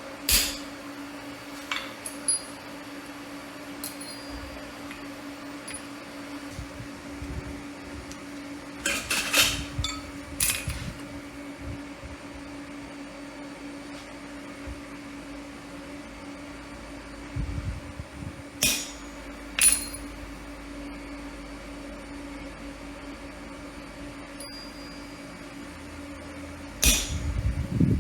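Scattered metal clinks and knocks, some ringing briefly, with a few bunched close together, over a steady low electrical hum. These are steel work pieces and forging tools being handled and set down.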